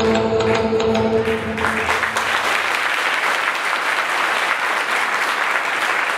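Music with held notes stops about one and a half seconds in, and an audience applauds.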